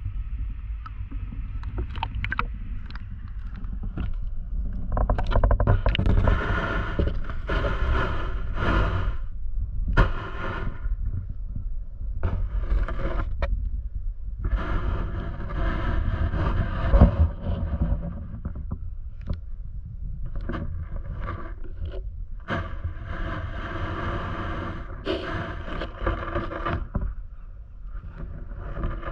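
Muffled water sound heard through a GoPro Hero 8 Black submerged in a shallow tide pool: a steady low rumble with repeated stretches of rushing, sloshing water, each a few seconds long. Sharp clicks and scrapes are scattered throughout.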